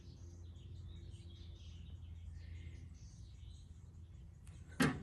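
Quiet stretch with a steady low hum and faint bird chirps, then a single sharp knock near the end as a chisel is handled among the tools.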